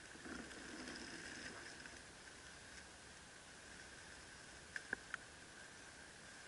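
Faint outdoor ambience with a steady high tone, a soft rustle in the first couple of seconds, and three quick clicks about five seconds in.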